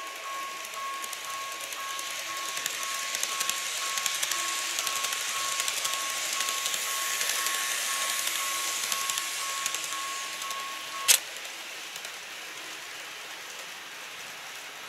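Model railway level crossing sounding a steady electronic warning tone while a model train runs through with a rattling hiss and fast clicking of wheels on the track. About eleven seconds in, the tone stops with a sharp click as the crossing switches off, and the barriers then lift.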